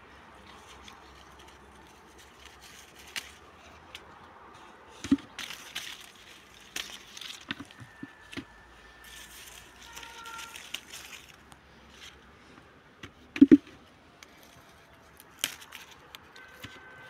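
Apple-tree leaves and twigs rustling and crackling with close handling, with scattered sharp clicks and louder knocks about five and thirteen seconds in.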